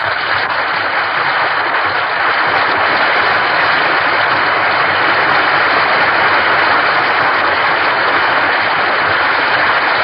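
Studio audience applauding, swelling over the first two seconds and then holding steady, heard through the muffled, narrow-band sound of a 1939 radio broadcast recording.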